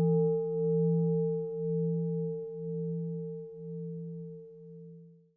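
A singing bowl (Buddhist meditation bell) ringing out after a single strike, its deep hum pulsing about once a second as it slowly fades. The sound cuts off abruptly near the end.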